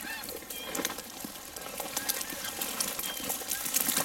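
Dry, dead grass rustling and crackling as a hunter and beagles push through it on foot, with a few short, faint high chirps mixed in.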